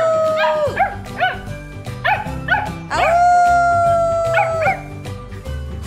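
Samoyed puppies howling together: a long drawn-out howl that trails off just under a second in, and another from about three seconds in that lasts nearly two seconds, with short yips between them. Background music with a steady bass line runs underneath.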